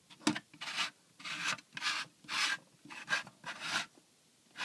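Handling noise: fingers rubbing against hard plastic in a series of short, hissy strokes, about two a second and unevenly spaced.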